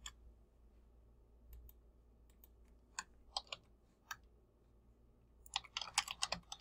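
Computer keyboard keystrokes, faint: one click at the start, a few separate key presses about three to four seconds in, then a quick run of typing near the end as a terminal command is entered.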